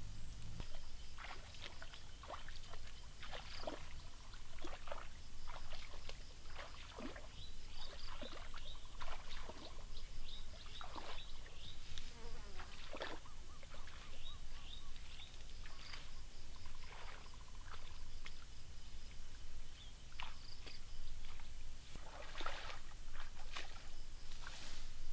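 Insects chirping in short, high, repeated calls, over an irregular scatter of rustles and snaps from tall grass being pushed through.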